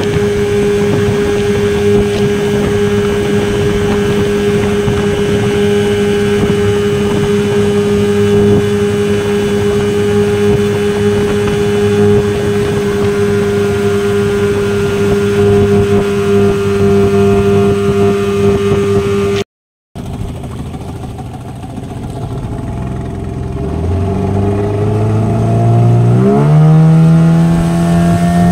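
A Suzuki 15 hp outboard motor running hard under way on a power test, its pitch steady. After a brief dropout about two-thirds through, it comes back slower, then revs up with a smoothly rising pitch and holds steady again near the end. The owner later judges the engine to be running very well and quite normally.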